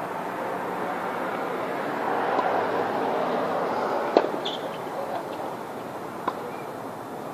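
Tennis racket striking the ball on a forehand, one sharp pop about four seconds in, followed by a fainter tap about two seconds later, over a steady background hiss.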